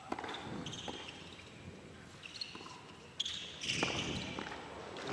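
Tennis ball struck by rackets in a serve and rally on an indoor hard court: a few sharp pops, one right at the serve and more about three seconds in, with short high squeaks of shoes on the court over a low arena murmur.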